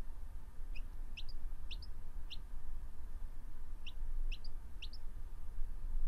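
A baby chick peeping: seven short, high, rising peeps, a run of four and then a run of three.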